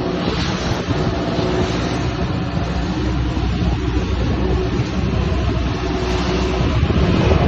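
Boat engine running steadily, a loud low rumble with a hissing noise over it, getting a little louder near the end.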